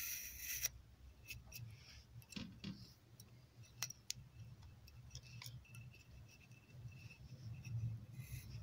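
Faint scattered clicks and a thin scraping of a rawhide lace being pulled through a scalpel-bladed beveling tool (desfilador) that trims its edges, over a low steady hum.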